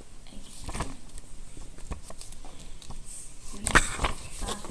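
Sheets of paper and a pen being handled close to the microphone: light rustling and small clicks, with one sharper knock about three quarters of the way through.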